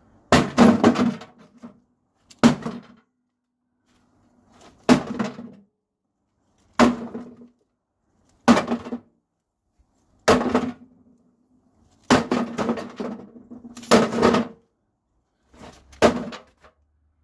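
A microwave oven being struck hard again and again, about nine blows roughly every two seconds, its sheet-metal casing clanging and ringing briefly after each hit.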